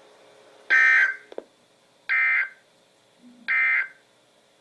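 Emergency Alert System end-of-message data bursts: three short, buzzy digital tone bursts about a second and a half apart, signalling the end of the alert.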